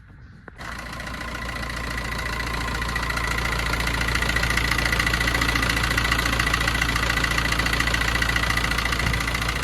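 2011 Fiat Linea engine starting about half a second in and settling into an idle, growing louder over the first few seconds, with a steady metallic whirr and rattle on top: timing chain noise, which the mechanic says comes from a weak, stretched chain or poor oil pressure.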